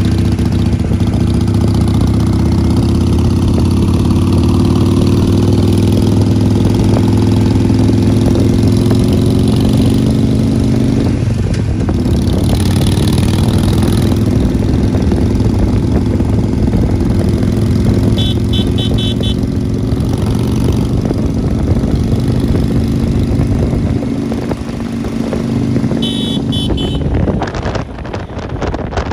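Harley-Davidson Iron 883's air-cooled 883 cc V-twin running at a steady cruising speed close alongside. Its note changes about eleven seconds in and weakens near the end. Two short runs of rapid high beeps sound over it, about eighteen and twenty-six seconds in.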